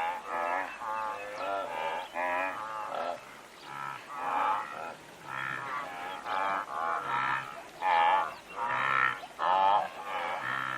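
Animal calls: a quick series of short, quavering cries, about two a second, some overlapping.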